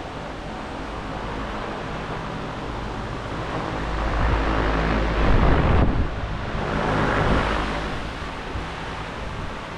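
Air buffeting the microphone, a rushing noise with a deep rumble that swells in two surges through the middle, over a faint steady low hum.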